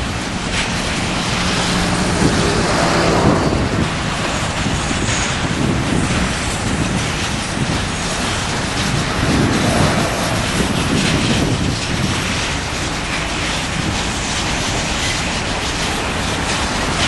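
Empty covered hopper cars of a grain train rolling past: steady noise of steel wheels on the rails, with scattered clicks.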